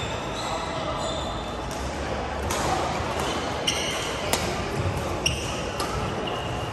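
Badminton rally: several sharp racket strikes on a shuttlecock, with sneakers squeaking on the court floor and background chatter from players on other courts.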